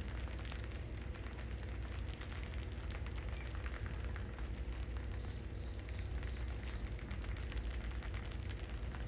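Many small, quick scratching clicks from a pile of field rats scrabbling over each other on tiles and scattered rice husks, over a steady low hum.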